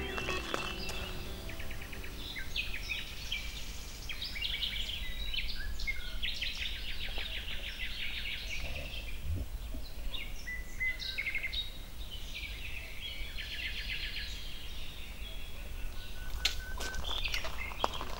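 Songbirds singing: a continuous string of chirps and rapid trills, over a low steady background rumble, with a few clicks near the end.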